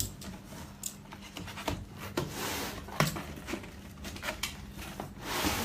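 Packaging rustling by hand while a gift box is unpacked, with scattered clicks and knocks, the sharpest about three seconds in.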